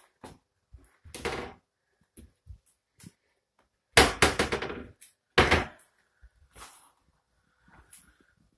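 Kitchen cabinet doors and drawers being opened and shut: scattered knocks, a longer rattle about a second in, a loud rattling clatter about four seconds in with another bang just after, then fainter bumps.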